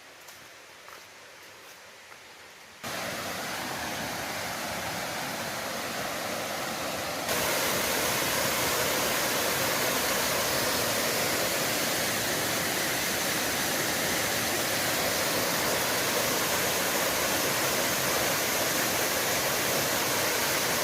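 Waterfall rushing steadily. It starts suddenly about three seconds in after a few faint ticks, and jumps louder again about seven seconds in.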